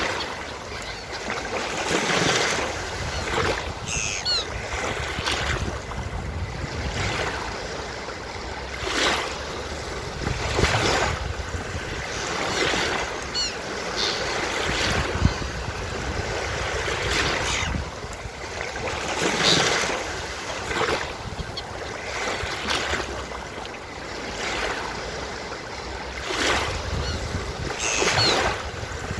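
Ocean surf washing onto a beach, with waves breaking and swelling every few seconds. Faint seagull calls sound now and then above the surf.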